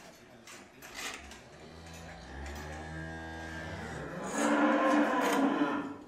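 A cow mooing: one long low moo that swells into a louder, higher-pitched call about four seconds in, then cuts off just before the end. A short sharp click is heard about a second in.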